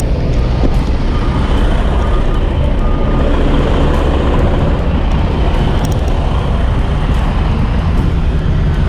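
Steady low engine rumble of idling trucks and a forklift, which drives up near the end carrying a pallet load.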